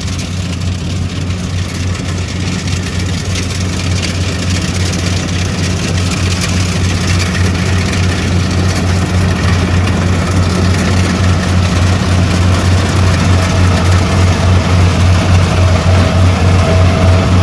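Small tracked rice combine harvester running: a steady low engine hum with the clatter of its cutting and threshing gear, growing gradually louder.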